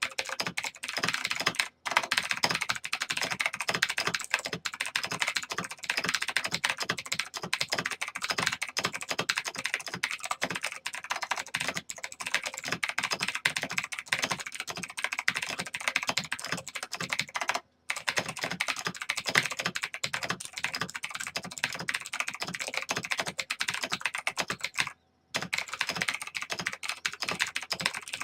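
Fast typing on a mechanical keyboard, a rapid, continuous clatter of key clicks at about 100 words a minute, broken by three very short pauses.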